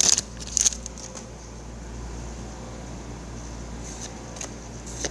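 Brief crinkling of a foil booster-pack wrapper twice in the first second, then faint handling of trading cards over a steady low hum.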